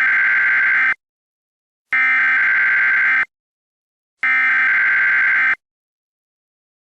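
Emergency Alert System SAME header: three identical bursts of digital data tones, each a little over a second long and about a second apart. The bursts carry the coded alert data that opens an emergency alert broadcast.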